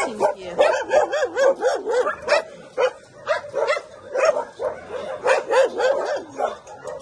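Several dogs barking and whining at once: a dense, overlapping run of short barks over high, wavering whines.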